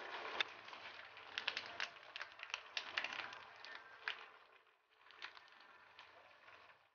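Chicken pieces simmering in a pan in the water they have released, with faint, scattered crackles and pops that thin out after about four seconds.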